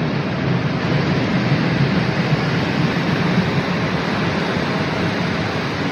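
Steady wind rumble and rush on the microphone, a loud even noise with no distinct knocks or tones.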